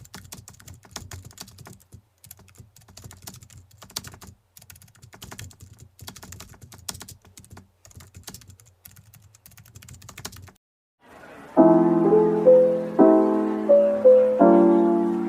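Typing on a computer keyboard: irregular quick key clicks for about ten seconds. Then, after a short pause, soft background piano music begins with slow sustained chords.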